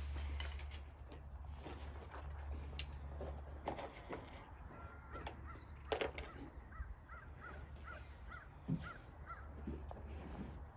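American crows cawing now and then, with a quick run of short high chirps about halfway through.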